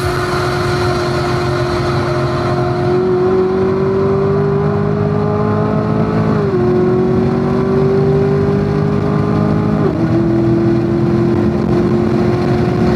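A C7 Corvette Stingray's 6.2-litre LT1 V8 accelerating hard, heard from inside the car. The engine note climbs steadily and drops sharply with an upshift about six and a half seconds in, then climbs again and drops with a second upshift about ten seconds in.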